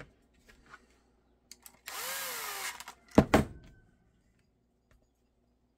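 Cordless impact driver running in a short burst, its motor pitch rising and falling, followed by two loud knocks.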